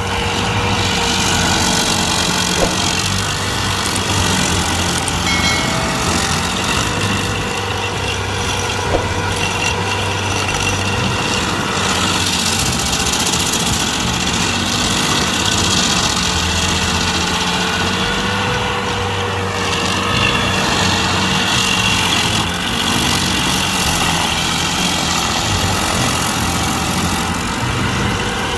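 A large engine running steadily under a constant load, its pitch sagging slightly and recovering about two-thirds of the way through, with a couple of faint knocks early on.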